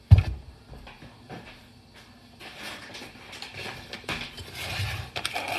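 A dull thump as a whole head of cauliflower is set down on a wooden cutting board. About halfway through, a plastic bag of peeled garlic cloves starts crinkling as it is picked up and handled.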